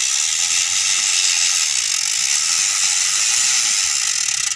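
XLR8 freehub on a mountain bike's rear wheel freewheeling, its pawls clicking so fast they blend into a loud, steady, high-pitched buzz: the 'jangkrik' (cricket) freehub sound.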